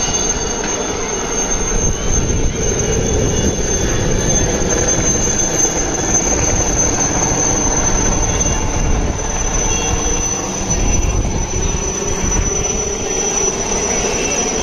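Helicopter flying low overhead: a steady high-pitched turbine whine over a continuous rotor rumble.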